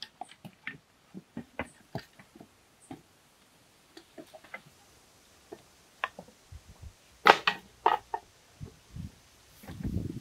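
Scattered light knocks, taps and scrapes of wooden tools and bamboo being handled, with a louder clatter about seven seconds in and a few low thuds near the end.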